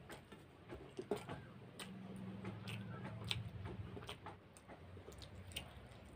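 Close-up eating sounds: fingers mixing rice on a steel plate and mouth chewing, heard as scattered small clicks and wet smacks. A faint low hum runs for a couple of seconds in the middle.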